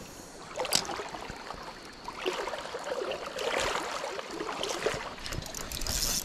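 Stream water flowing and sloshing, with a single sharp click a little under a second in.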